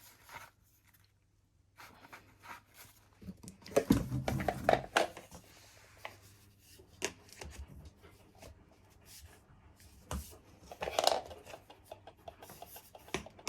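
Plastic parts and accessories of a Karcher WD 2 Plus wet and dry vacuum being handled and clipped together: scattered clicks, knocks and rubbing, loudest about four seconds in and again near eleven seconds.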